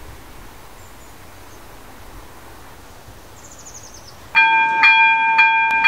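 Quiet outdoor ambience with a brief faint high chirping trill, then about four seconds in a loud chord of several steady tones starts suddenly, pulsing about twice a second.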